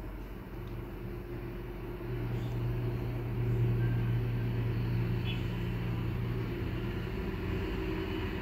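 A steady low mechanical hum, like a motor running, that grows louder about two seconds in and then holds steady.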